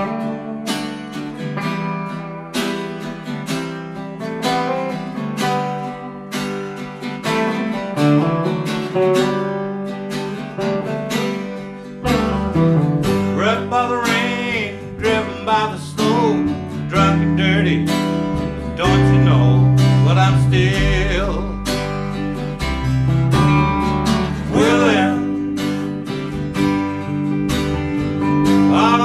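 Live band playing a slow country-blues song: an electric hollow-body guitar and an acoustic guitar strum the intro, an upright bass comes in about twelve seconds in, and voices begin singing shortly after.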